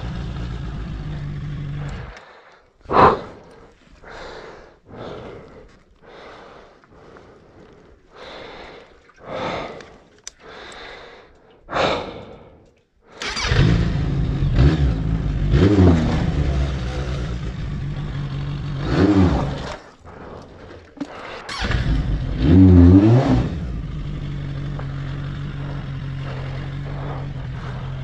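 Suzuki Bandit 1200S's inline-four engine idling, then absent for about eleven seconds while short scuffing noises come and go. The engine returns about halfway through, is revved three times in rising and falling bursts, and settles back to a steady idle, as the bike struggles to move in soft sand.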